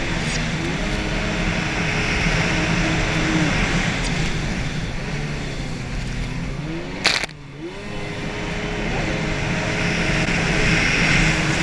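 Racing jet ski running at speed, its engine pitch shifting up and down over a steady hiss of wind and spray. About seven seconds in comes a sharp crack, the sound drops for a moment, and the engine picks up again.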